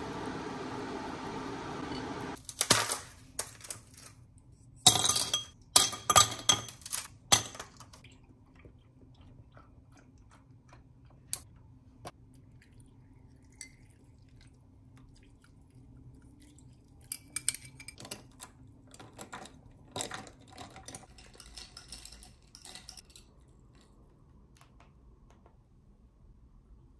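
Dishes, utensils and glassware being handled: a string of sharp clinks, taps and knocks, thickest in clattering runs a few seconds in and again about two-thirds through. It opens with a steady hiss that cuts off about two seconds in.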